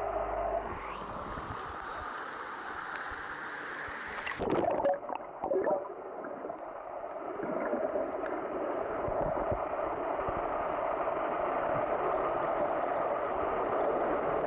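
Muffled water noise heard underwater in a swimming pool: a steady gurgling wash, with a few knocks about four to six seconds in.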